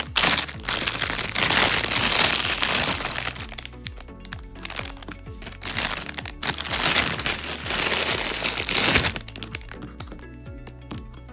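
Clear plastic bag crinkling and rustling as gel pots are pulled out of it, in several loud bursts that stop near the end, with background music underneath.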